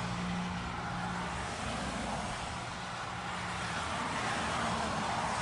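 Steady rushing outdoor background noise with no distinct events, and a faint low hum in the first second or so.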